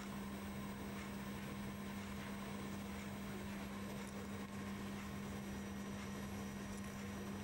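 A steady low hum over an even background hiss, unchanging throughout, with no distinct event.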